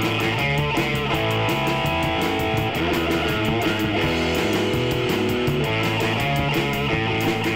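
Live instrumental rock trio playing: electric guitar holding long sustained notes over bass guitar and a drum kit with steady cymbal strokes.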